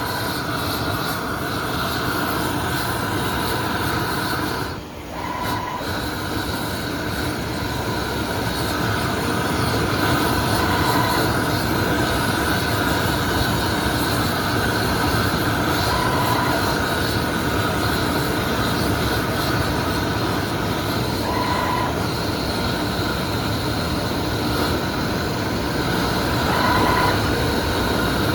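CNC metal spinning machine running: a steady mechanical hum and whir with a faint squeal, and a short higher tone that comes back about every five and a half seconds. The sound dips briefly about five seconds in.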